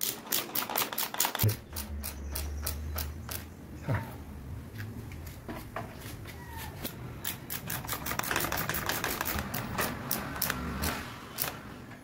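Hand screwdriver driving screws through a stainless steel door hinge into the wooden frame, in runs of rapid clicking, about eight to ten clicks a second, with a low hum for about two seconds near the start.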